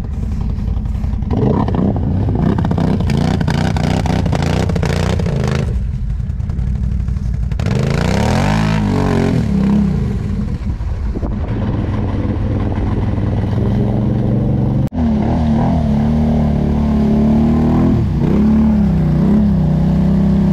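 Quad bike engine running hard on a muddy off-road trail. The engine revs up and down in pitch partway through, then settles to a steadier note with a few brief dips.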